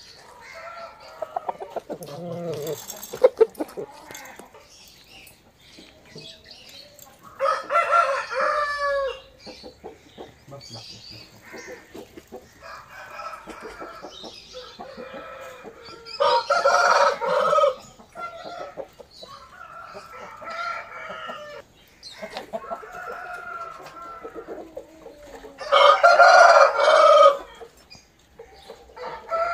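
Aseel roosters crowing: three loud crows, each about a second and a half long and roughly nine seconds apart, with fainter calls in between.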